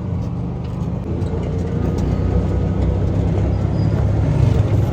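A motor vehicle being driven along an unpaved dirt road: a steady low engine hum over continuous road noise.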